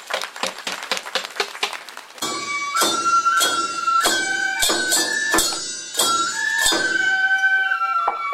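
Applause dies away, then about two seconds in a flute starts a melody of long held notes, stepping between pitches, with loud drum strikes beating under it.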